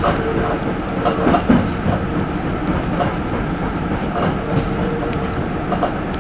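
Hankyu electric train running along the track: steady rolling noise with wheels knocking over rail joints, the clearest knocks about a second and a half in.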